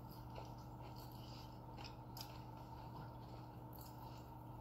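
Faint eating sounds: chewing and small wet clicks and smacks of the mouth, scattered through, over a steady low hum.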